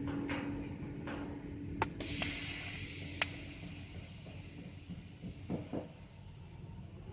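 TIG (GTAW) welding torch on stainless steel pipe, hissing steadily. The hiss starts suddenly about two seconds in after a sharp click and stops near the end.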